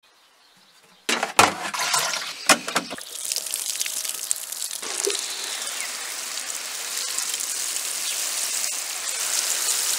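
Water spraying from a watering can's rose onto garden plants, a steady hiss and patter from about three seconds in. Before it, a few sharp knocks and clatters in the first seconds.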